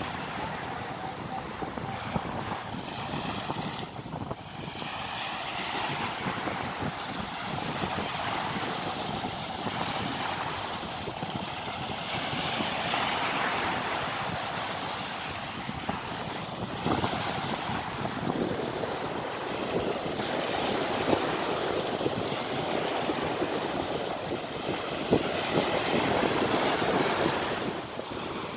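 Small waves breaking and washing up the beach, swelling and easing every few seconds, with wind buffeting the microphone.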